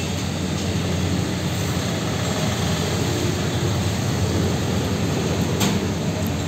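Steady low engine hum, with a single sharp click about five and a half seconds in.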